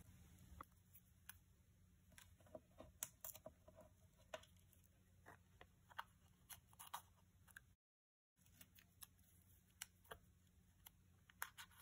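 Near silence, with faint scattered small clicks and ticks from hands tearing washi tape and pressing it onto paper.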